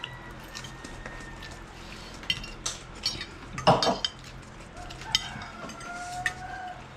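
Cutlery clinking and scraping against plates during a meal, in scattered short clicks, with one louder clatter a little past halfway.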